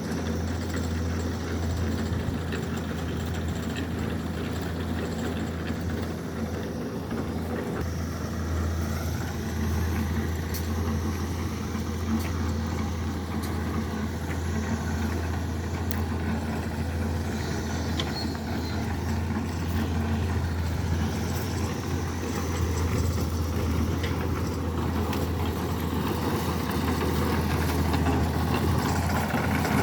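Heavy machine engine running steadily with an even low hum, growing slightly louder near the end.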